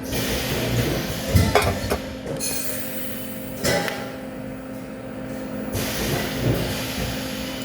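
Metal knocking and clinking a few times over a steady electrical hum and hiss.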